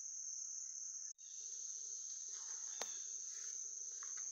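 Steady high-pitched chirring of an insect chorus in the woods, cut out for an instant about a second in, with one sharp click near the middle.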